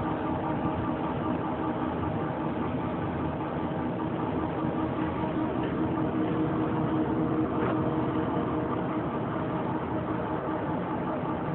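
Heavy 30 hp Lehmann hollow-spindle engine lathe running under power: a steady mechanical hum with several steady tones held at an even pitch.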